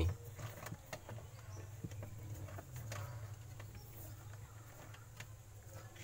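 Faint clicks and rustles of hands handling and twisting a bundle of insulated wires, over a steady low hum.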